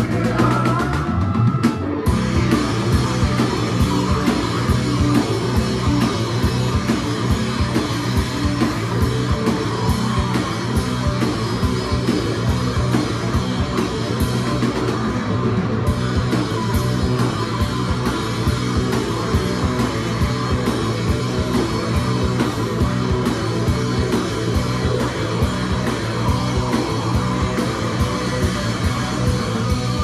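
Live rock band playing an instrumental passage: loud distorted electric guitars over a driving drum-kit beat. The full band comes in about two seconds in.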